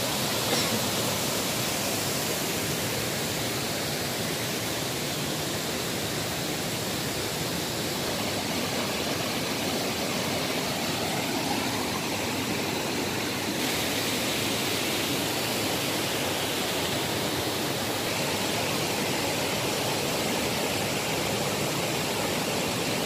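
Steady rushing of water from small waterfalls cascading over rocks into a pool.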